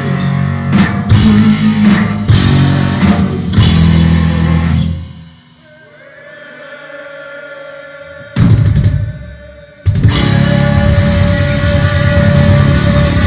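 Heavy metal band playing live at full volume: electric guitar, bass and drum kit with heavy drum hits. About five seconds in the band drops away to a quieter held, slightly wavering note; a loud crash comes in about three seconds later, and the full band comes back in a second after that.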